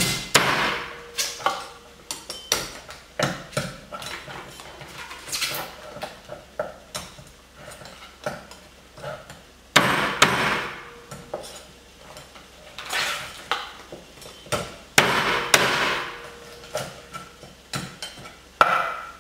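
Meat cleaver chopping through a lobster's shell on a wooden cutting board, cutting off its claws and legs at the joints. It makes a string of sharp knocks, with a few longer cracking cuts through the shell at about ten, thirteen and fifteen seconds in.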